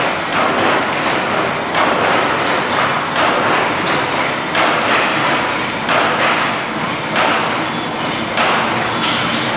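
Horizontal steam mill engine running at speed, its flywheel turning. A rhythmic beat about once a second sits over a steady mechanical rumble.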